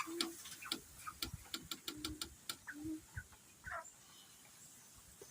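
Chickens clucking faintly in short, scattered calls, with a quick run of sharp clicks through the middle.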